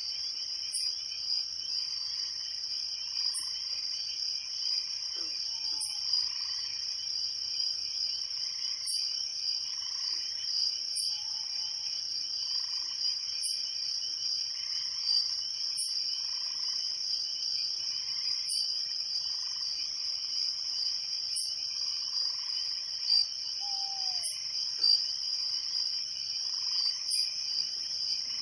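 Night chorus of crickets trilling steadily, with frogs calling at intervals and a short high chirp repeating about every two and a half seconds.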